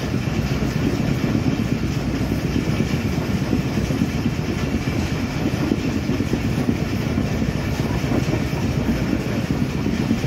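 Steady rumble of a moving passenger train coach, heard from inside: wheels running along the rails with the carriage rattling.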